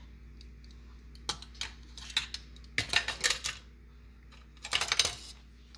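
Kitchen tongs clicking and tapping against a mixing bowl while a catfish nugget is dredged in seasoned flour and cornmeal: a few single clicks, then two quick clusters of taps about three and five seconds in.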